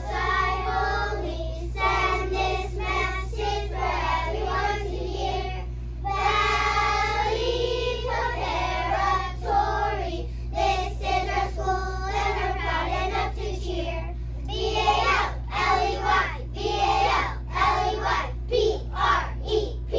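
A class of kindergarten children singing a song together in unison, the phrases turning more clipped and syllable-by-syllable in the last few seconds, over a steady low hum.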